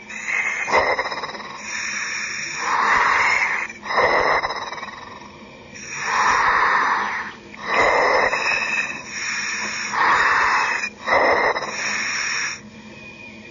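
A surface-supplied diver breathing through his helmet's demand valve, heard over the diving communications: several cycles of loud hissing breaths a few seconds apart, with quieter gaps between them.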